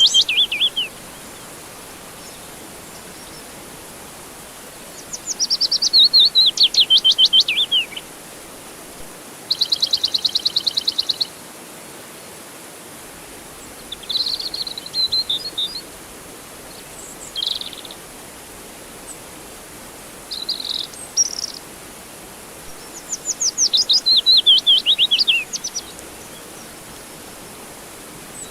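Songbirds singing in separate phrases: fast trills that slide downward in pitch, one steady rapid trill about ten seconds in, and a few short chirps between, over a steady faint hiss.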